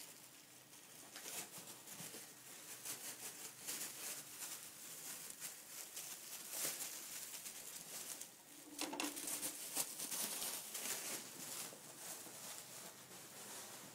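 Plastic bubble wrap crinkling and rustling as ferrets scramble over and through it, a close, busy crackle. A brief low tone sounds about nine seconds in.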